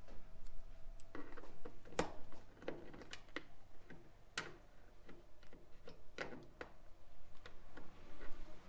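Small retaining clips being popped out by hand: several sharp clicks and light snaps at irregular intervals.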